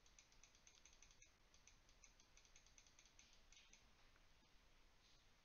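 Computer mouse scroll wheel clicking quickly through its notches, a fast run of faint ticks that stops a little over halfway through.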